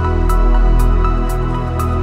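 Background music: sustained synth tones over a deep bass, with a light high tick about twice a second keeping a steady beat.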